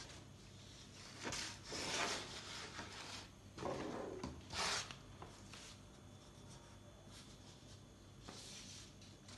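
Paper sheet rustling and rubbing as it is handled in gloved hands, in a few short bursts during the first half and one fainter burst near the end.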